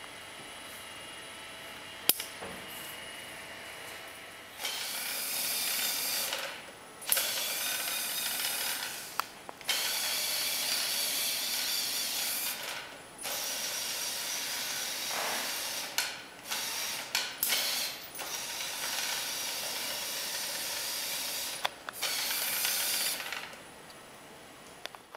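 The robot's small electric gear motors whir in a series of runs of one to three seconds each, starting and stopping repeatedly as it drives and turns. Before the first run there is only a faint steady hum and a single sharp click.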